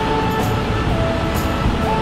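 A vehicle engine running steadily under background music, which plays a few held, steady notes.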